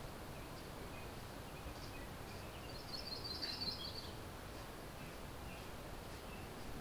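Faint outdoor ambience: a steady low background noise, with a small songbird giving a brief high trill about three seconds in and a few scattered short chirps around it.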